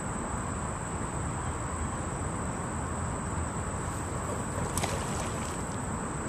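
Steady outdoor background: a constant high insect drone over a low rumble, with a few faint clicks about five seconds in.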